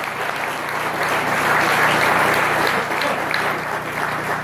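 Audience applauding, a steady clapping that swells slightly near the middle.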